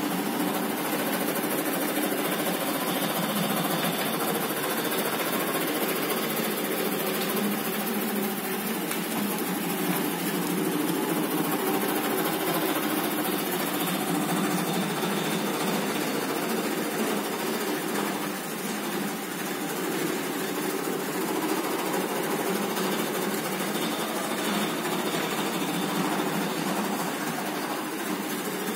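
Wide-format roll laminating machine running steadily, its rollers drawing a printed vinyl sheet through under the laminating film.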